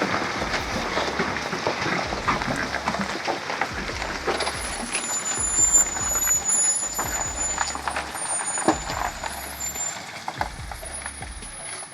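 Mercedes-Benz 2651 heavy truck with its OM473LA inline-six diesel working over rough terrain: the engine runs under steady noise with frequent knocks and rattles, and thin high squeals join from about halfway through.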